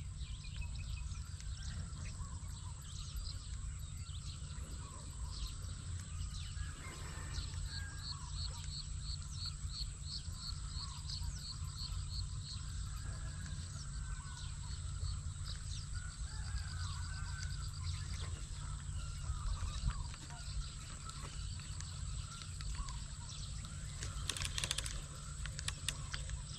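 Birds chirping and calling over a steady low rumble of outdoor background noise, with a rapid run of high repeated notes starting about seven seconds in and lasting several seconds.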